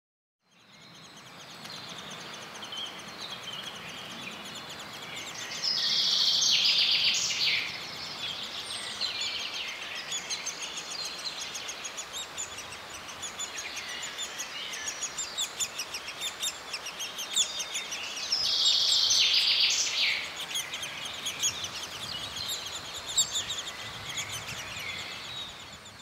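Birds chirping and singing in woodland, fading in at the start. There are two louder spells of dense, rapid chirping, one about six seconds in and one about eighteen seconds in.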